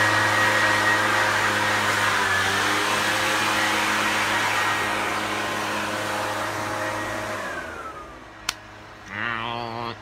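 A motor-driven blower runs with a steady loud rush over a low hum, then winds down with a short falling whine about three-quarters of the way through. A sharp click follows, then a brief wavering pitched sound.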